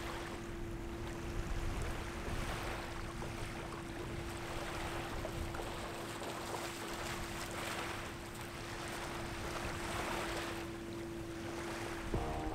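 Shallow water lapping and washing in soft surges every second or two, with wind on the microphone and a steady faint hum underneath. Music comes in just before the end.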